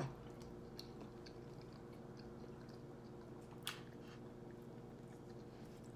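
Faint chewing as a person eats a forkful of loaded baked potato, with a few soft ticks and one sharper click about three and a half seconds in as the fork digs back into the potato, over a low steady hum.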